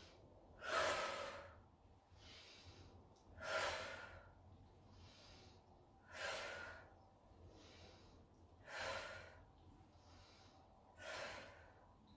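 A woman breathing audibly in a steady rhythm, paced to a repeated arm-raise and forward-bend exercise. A stronger breath comes about every two and a half seconds, five in all, with fainter breaths between.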